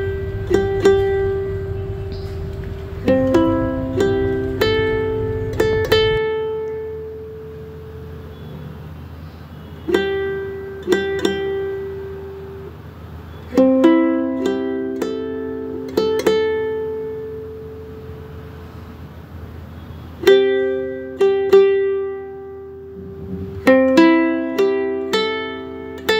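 Instrumental background music of plucked strings: short phrases of picked notes, each ringing and fading, separated by brief pauses. A low rumble runs under the music at first and cuts off suddenly about six seconds in.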